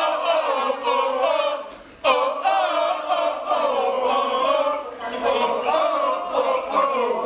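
A crowd of young people singing and chanting together in a loose, loud unison. The singing dips just before two seconds in and comes back suddenly.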